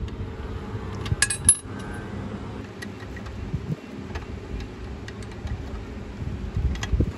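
Light metallic clicks and taps as a bit is fitted into a bench drill press's chuck and the chuck is tightened by hand, the sharpest clicks coming about a second in, over a low steady rumble.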